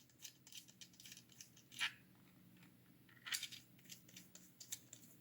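Faint, scattered small clicks and short scrapes of hands handling small parts, a 3D-printed plastic trigger frame and its screws, with a few louder clicks about two seconds in and just after three seconds.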